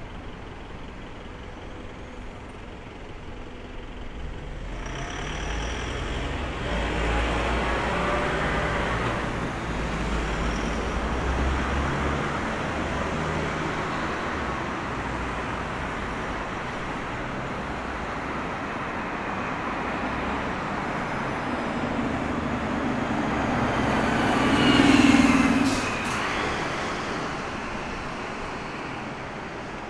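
Road traffic with heavy vehicles going by, a low rumble building up about four seconds in. One vehicle passes closest and loudest about twenty-five seconds in, then fades.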